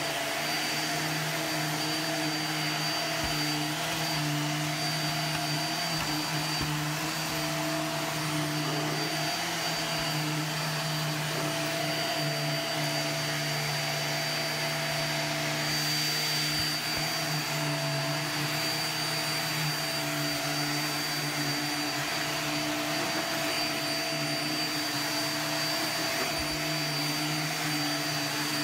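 Upright bagless vacuum cleaner running steadily as it is pushed back and forth over carpet: a constant motor hum with a thin high whine on top.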